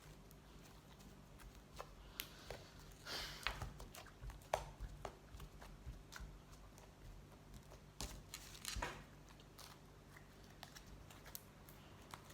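Fluffy slime being squeezed and stretched by hand, giving faint scattered pops, crackles and squishes in irregular clusters.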